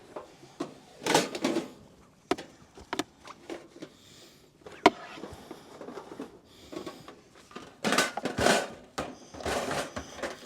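Gear being handled and moved around inside a car: irregular rustling, with knocks and sharp clicks, the loudest click about five seconds in.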